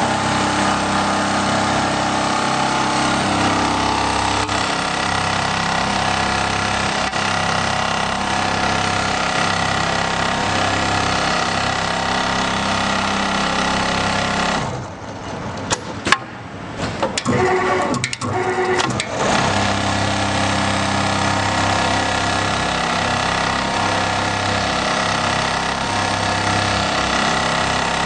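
Richpeace CNC pattern sewing machine running and stitching steadily at speed. About fifteen seconds in, it stops for a few seconds with scattered clicks and one sharp click, then starts stitching again.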